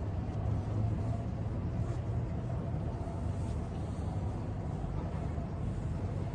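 Steady low background hum with a faint steady tone above it and a few faint ticks.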